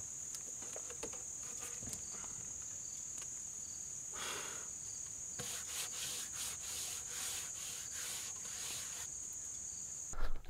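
Insects, crickets or similar, trilling steadily as a continuous high-pitched whine that cuts off abruptly near the end. Soft bursts of hiss come in the middle.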